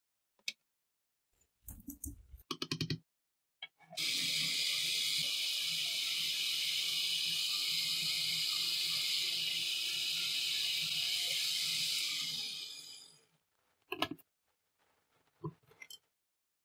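Electric food chopper motor running steadily for about nine seconds as its blades grind strawberries, then winding down. A few plastic clicks and knocks before it starts and after it stops, as the bowl and lid are handled.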